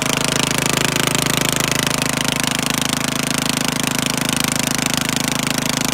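Race mower's small engine running steadily with a fast, even pulse.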